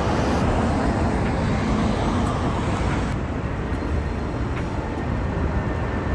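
Street traffic: cars driving past on a city road, a steady noise of engines and tyres.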